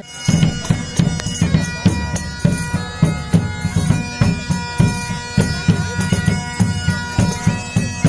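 A bagpipe playing a tune over its steady drones, with a large hand drum beating about twice a second.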